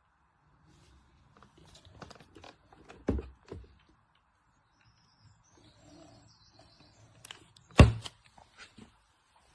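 A scattered series of short handling clicks and knocks, with a sharp thump about three seconds in and a louder knock near eight seconds.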